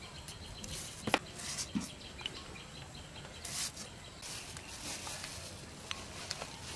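Kitchen knife trimming the stem ends off green chillies held in the hand: a few sharp clicks, the sharpest about a second in, with brief rustles in between.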